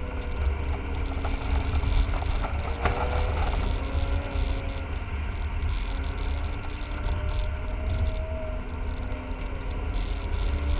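Cabin sound of a BMW E39 5 Series on the move: the engine runs steadily, its note rising gently twice, under a heavy low rumble of road and wind noise.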